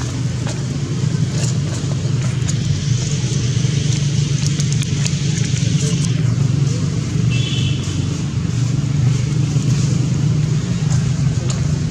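Steady low engine hum from a running motor, with scattered faint clicks and a brief high chirp about seven and a half seconds in.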